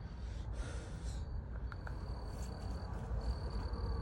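An insect, likely a cricket, trilling outdoors: a steady high-pitched trill in stretches of about a second, broken by short pauses, over a low wind rumble.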